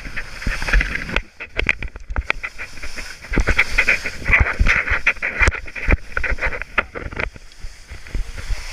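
Skis sliding and scraping over spring snow: a steady hiss broken by many short, sharp scrapes, with a low rumble of wind on the microphone.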